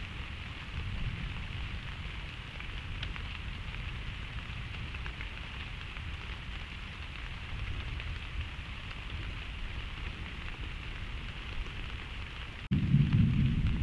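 Steady hiss of rain over a low rumble of a thunderstorm. Near the end it cuts abruptly to a much louder, deep thunder rumble.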